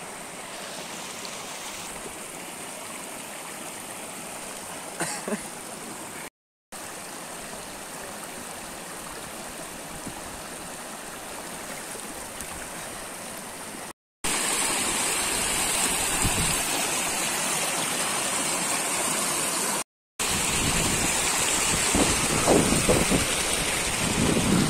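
Snowmelt mountain stream rushing and splashing over rocks in a steady wash of water noise. It grows louder after about fourteen seconds, with low rumbling on the microphone in the last few seconds.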